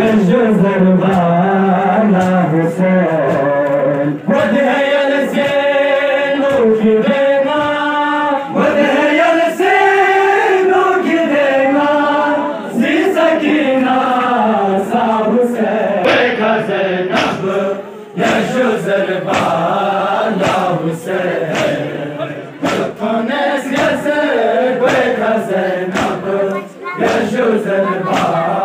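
A group of men chanting a mourning lament (noha) together in a steady, repeating melody. Sharp slaps recur in time with it, more densely in the second half: the chest-beating of matam.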